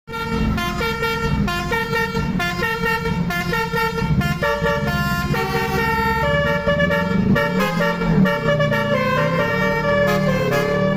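Bus telolet horn, a set of air horns tuned to different notes, playing a quick tune of short held notes, with the bus engine running underneath.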